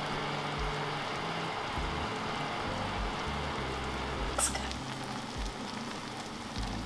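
A pot of tamarind fish-and-shrimp soup simmering on an electric stove, an even bubbling hiss like light rain. A single sharp click about four and a half seconds in.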